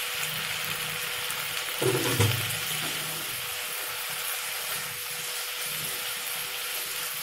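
Bottle gourd leaves and stems sizzling in hot oil in a wok while being stirred, with a steady hiss from their released moisture. There is one louder knock about two seconds in.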